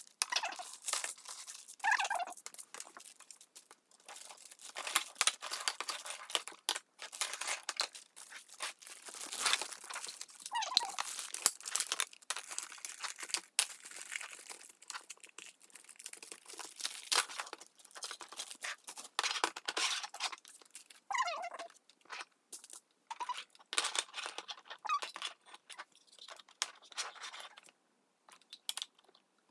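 Thin plastic packaging bags crinkling and rustling as they are handled and torn open, with irregular clicks and taps of hard plastic toy parts being set down and fitted together. A few short squeaks come through now and then.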